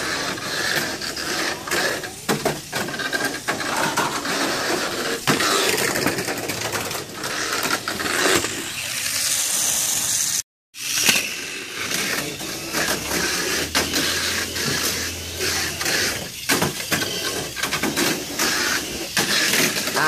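Tamiya Mini 4WD cars running laps on a plastic track: the small motors and gears whir steadily, with rapid clicking and clattering as the rollers and tyres hit the lane walls and track joints. The sound cuts out completely for a moment about halfway through.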